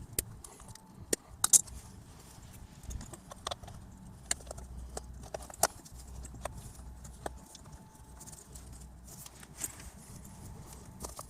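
Irregular light clicks and knocks from tools and strut parts being handled, the loudest about a second and a half in, over a low steady hum.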